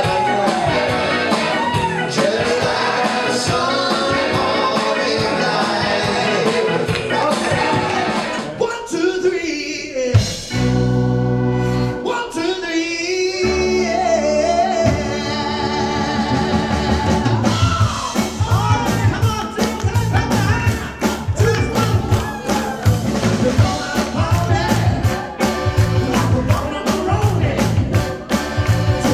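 Male voices singing a song live with a backing band of electric guitar and keyboards. About ten seconds in the singing drops out under a held chord, then the song picks up again, with a steady beat through the last ten seconds.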